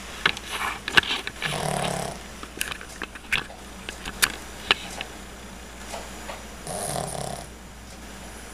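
A dog snoring in its sleep: two snores about five seconds apart, with scattered sharp clicks in between.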